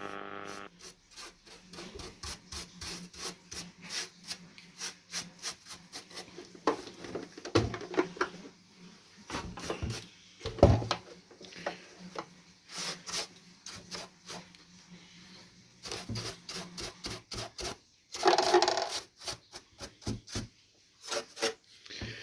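Hand work on a radio cassette recorder's casing: quick, irregular rubbing and scraping strokes, several a second, with a few knocks, the loudest about ten seconds in.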